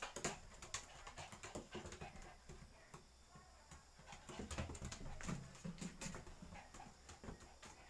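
Claws and paws of small dogs, a Pomeranian and a Shih Tzu, clicking and tapping on a wooden floor as they hop and jump up, in quick irregular clicks.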